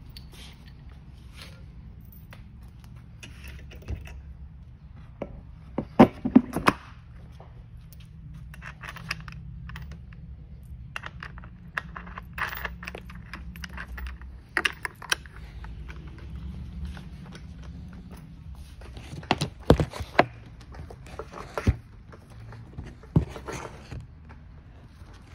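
Metal washers and a nut clinking, scraping and knocking as a front wheel is fitted onto a ride-on toy quad bike's axle and the nut is run on by hand and with a small hand tool. The clicks and knocks are scattered, with a loud cluster about six seconds in and another near twenty seconds, over a steady low hum.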